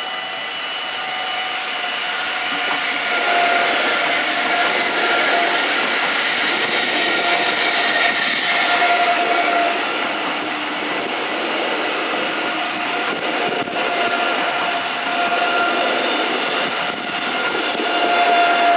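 ICE 3 high-speed train passing over a level crossing. The rush of the train swells about three seconds in, with a high whine over the following several seconds. The crossing's warning bells keep ringing throughout.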